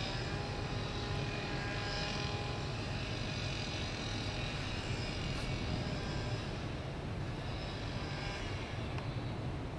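A steady mechanical drone: a low hum with several steady whining tones above it, thinning out near the end.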